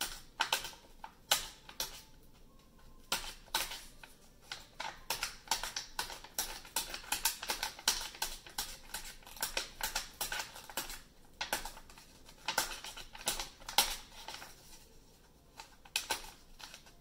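Quick, irregular taps and pops of a pointed tool punching holes through a sheet of paper, coming in clusters with a few short pauses.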